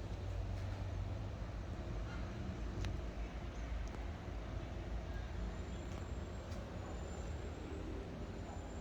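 Quiet background noise: a steady low rumble and hum, with a few faint clicks.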